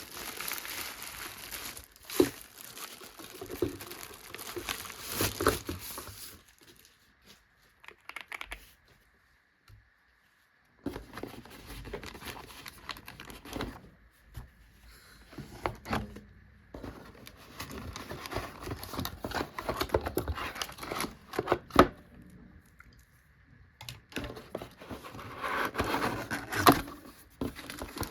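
Keyboard packaging being unwrapped by hand: crinkling and tearing in irregular bursts, with a few sharp knocks of handling and pauses in between.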